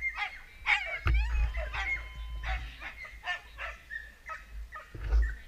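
Sled dogs yelping and barking excitedly in many quick, high calls, over a low wind rumble.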